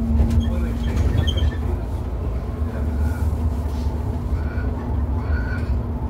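City bus driving along, heard from inside the cabin: a steady low rumble of engine, drivetrain and road with a constant hum over it.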